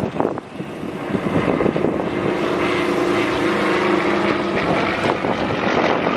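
Aircraft engine drone as a plane flies past, with a steady held tone through the middle, over wind buffeting on the microphone.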